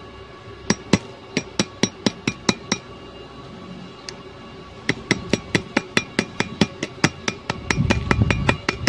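Sharp metallic taps of a pointed steel tool chipping slag off a fresh stick-weld bead on a steel pipe. A quick run of about nine taps comes first, then after a short pause a steady tapping of about four to five a second.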